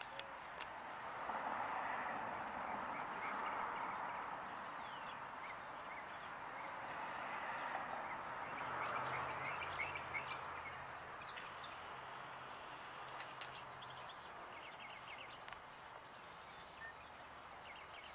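Outdoor ambience: small birds chirping, with a quick run of repeated high chirps in the second half, over a soft steady rush that swells and fades.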